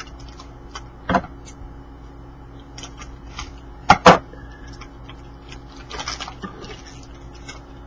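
Trading cards being handled and flipped through: soft rustles and light clicks of cards sliding against one another, with a sharper snap about a second in and two more around four seconds, over a faint steady hum.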